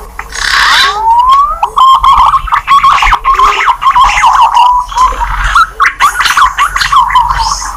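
Green pigeon (punai) calls played as a hunting lure: a rising whistle about a second in, then a run of wavering, warbling whistles, with short lower notes repeating underneath.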